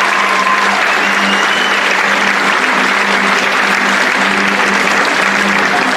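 Audience applauding steadily and loudly.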